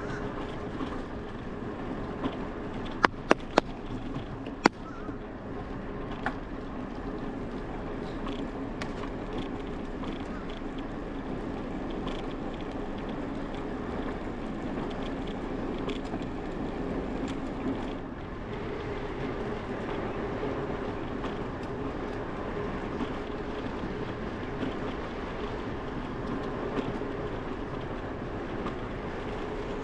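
Bicycle rolling along a concrete path, a steady rolling hum of tyres and frame, with four sharp clicks about three to five seconds in.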